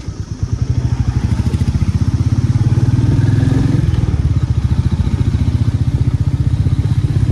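Motorcycle engine running under way, its exhaust a rapid, even pulsing beat; it grows louder about half a second in and then holds steady.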